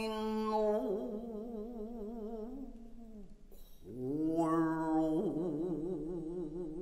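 A voice singing long held notes with a wide vibrato. The first note fades out about three seconds in, and a new note swoops up about a second later and is held.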